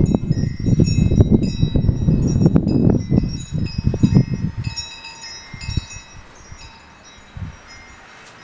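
Wind chimes ringing in the wind, many high, clear notes struck and overlapping. Gusts of wind buffet the microphone with a loud low rumble through the first half, then die down, leaving the chimes ringing more quietly.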